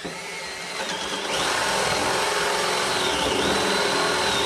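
Cordless drill running, its bit boring through the wooden stand. The motor picks up speed and grows louder about a second in, then runs steadily, its pitch sagging briefly under load midway.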